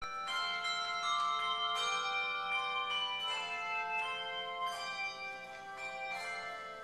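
Handbell choir ringing a slow hymn arrangement: chords of bright bell tones struck about every second and a half, each left ringing on under the next.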